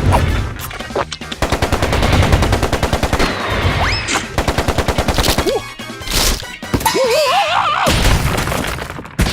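Cartoon sound effect of a long, fast, rattling fart, several pulses a second, followed by a wobbling, sliding squeal from a cartoon character's voice.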